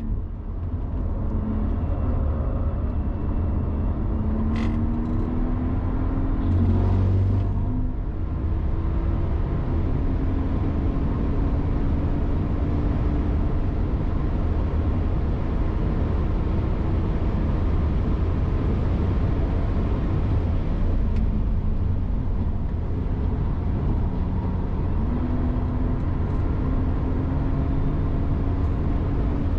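Car engine pulling hard on a race circuit, its note rising slowly as it accelerates several times over a heavy steady rumble, with a brief sharp noise about four and a half seconds in and another near seven seconds.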